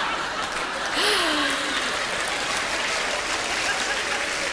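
Large theatre audience applauding, a dense steady clatter of clapping, with one voice briefly rising and falling about a second in.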